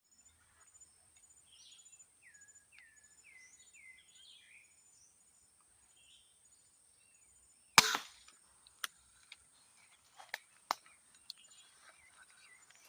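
An 80-lb crossbow fires once about eight seconds in: a single sharp, loud snap with a short ringing tail, followed by a few scattered lighter clicks. Before the shot, birds give a string of short descending calls over a steady high insect buzz.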